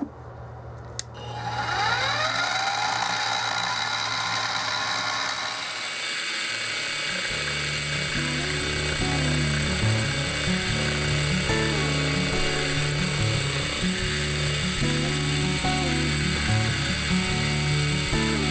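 A benchtop mill-drill's spindle motor switches on with a click and spins up, its whine rising in pitch over the first few seconds, then runs steadily as the end mill goes into the work. From about six seconds in, background music with a stepped bass line comes in and carries on over the running machine.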